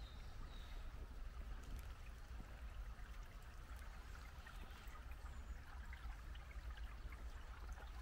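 Small shallow woodland stream trickling and flowing steadily over stones, with a low steady rumble underneath.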